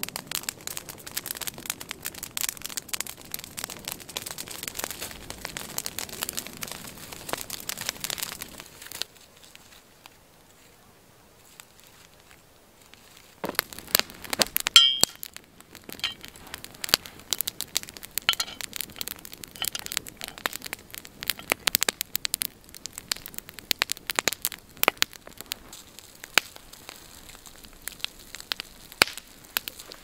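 Open wood fire crackling and popping with irregular sharp snaps. The crackle drops away for a few seconds about a third of the way in, then returns with a brief burst of ringing metallic clinks.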